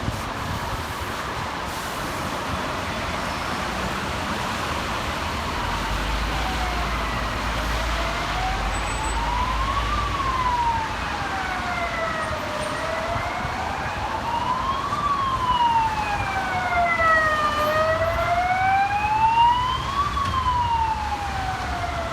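Emergency vehicle siren in a slow wail, its pitch rising and falling about once every five seconds, coming in about seven seconds in over a steady rushing noise.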